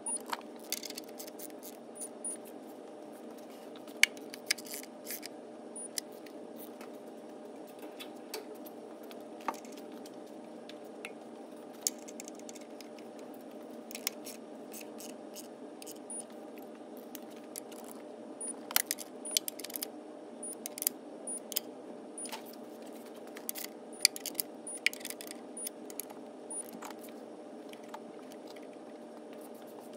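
Scattered metallic clicks and clinks of a socket wrench on a long extension working the intake manifold bolts, with quick runs of clicks in the second half, over a steady hum.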